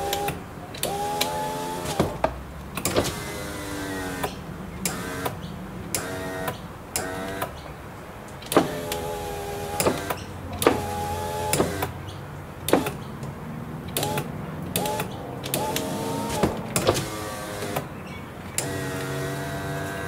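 Isuzu D-Max power window motors whine in a dozen or so short runs of half a second to a second and a half, each starting and ending with a switch click. The windows are being driven up and down from a newly fitted master switch panel to test it, and it works.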